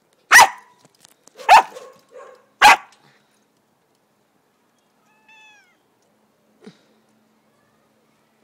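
Dog and cat at play: three loud, short cries about a second apart, then a faint, brief falling call about five seconds in.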